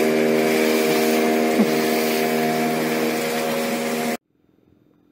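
A fishing boat's engine running steadily under way, with a broad rush of wind and water over it. The sound cuts off abruptly about four seconds in, leaving only a faint low hum.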